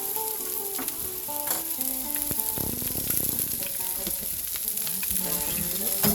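Lingcod fillets sizzling as they fry in a pan, a steady crackling hiss, with a melody playing over it.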